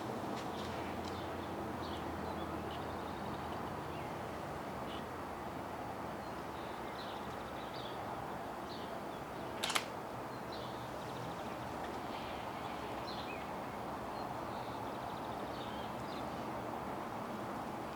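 Small birds chirping in short, scattered calls over steady outdoor background noise, with one sharp click about ten seconds in.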